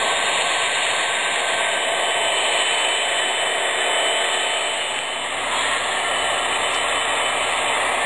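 HO scale model diesel locomotives with onboard sound systems running past close by: a steady hissing rush of their motors, wheels on the rails and diesel engine sound from the small speakers.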